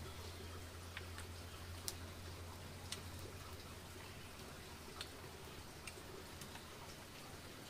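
Faint, sparse sharp clicks at irregular moments, over a steady low hum.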